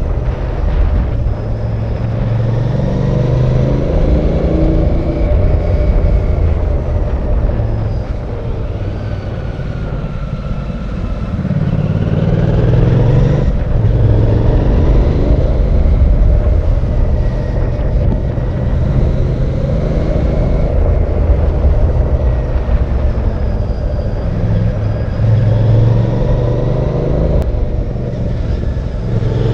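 Royal Enfield Bear 650's 648cc parallel-twin engine pulling the bike along, its revs rising and falling over and over as the rider works the throttle and gears. It eases off a little about a third of the way in, then picks up again.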